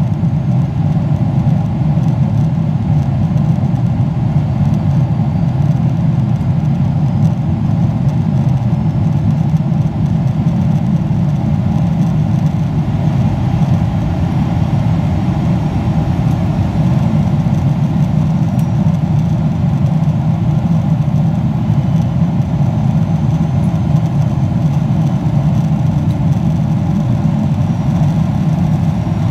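Steady low engine rumble, loud and unchanging, with no revving or separate events.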